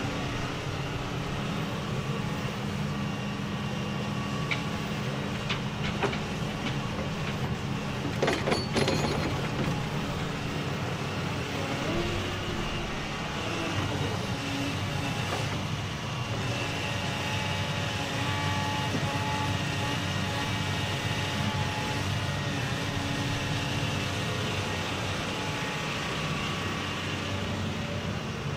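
Doosan DX235LCR-5 short-tail-swing excavator running steadily under load as it swings, digs and loads a truck, its diesel engine and hydraulics holding an even drone. A brief clatter of knocks comes a little past eight seconds in.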